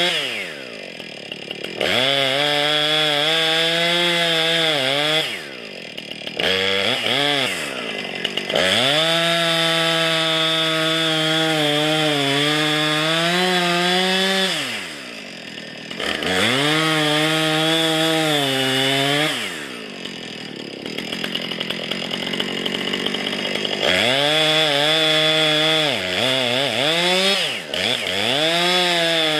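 Two-stroke chainsaw cutting into the base of a standing maple for the felling cut. It runs at full throttle in the wood and drops back toward idle about five times, with a longer idle stretch about two thirds of the way through before it revs up again.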